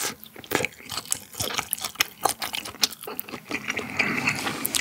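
Close-miked wet chewing of a mouthful of raw beef dipped in seasoning sauce: a run of soft, irregular sticky smacks and squishes.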